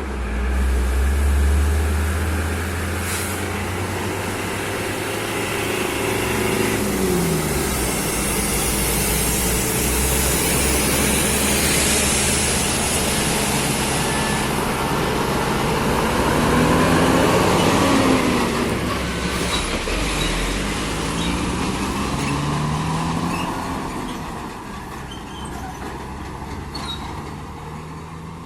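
Heavy diesel truck engine running under load on an uphill climb, its pitch rising several times as it revs, with a hiss over it.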